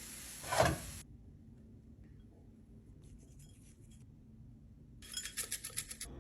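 Kitchen knife work on a cutting board: one louder knock about half a second in, then near the end a quick run of short knife strokes.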